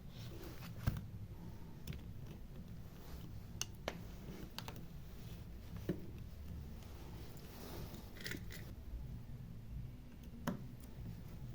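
Scattered small clicks and taps of phone parts being handled and fitted together during reassembly, over a steady low hum.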